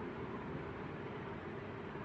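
Steady background noise, an even hiss and hum with no distinct events.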